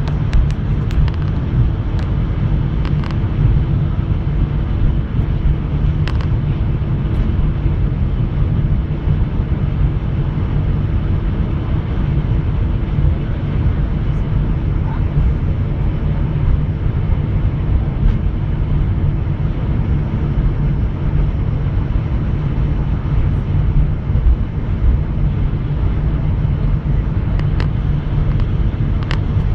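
Airbus A380 cabin noise while taxiing: a steady, loud low rumble of the engines and the aircraft rolling along the taxiway, heard inside the cabin, with a few faint clicks.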